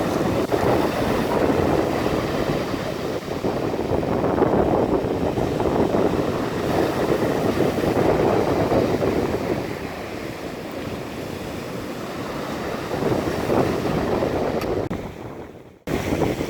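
Stormy sea surf rolling and breaking on the shore, with wind buffeting the microphone. Near the end it fades away and then comes back abruptly.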